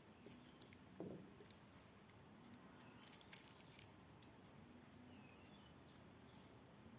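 Faint small metallic clicks and taps from a wristwatch being handled: a few in the first second or two and a quick cluster about three seconds in.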